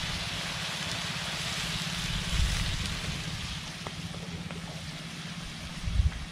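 Onion, garlic and chili in soy sauce and coconut vinegar sizzling in a wok over a wood fire, a steady hiss. Two dull low thumps, about two seconds in and near the end.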